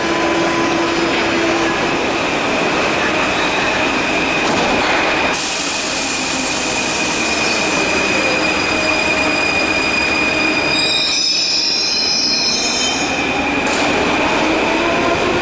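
Paris Métro MF01 (MF2000) steel-wheeled train running along the platform: a steady loud rumble with a constant high whine, and wheels squealing for a couple of seconds about eleven seconds in.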